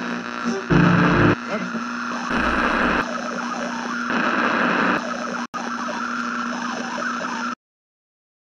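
A dense, harsh layer of noise from a horror soundtrack, changing in abrupt blocks over a low steady hum. It cuts off suddenly to silence about seven and a half seconds in.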